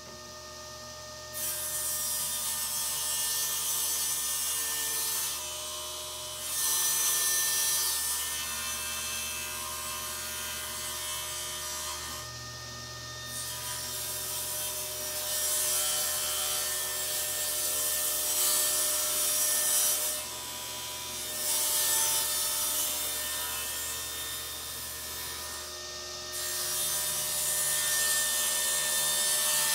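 Table saw running and cutting a sheet of plywood. A steady motor hum sits under loud blade-in-wood noise that starts about a second and a half in and eases briefly four times as the sheet is fed through.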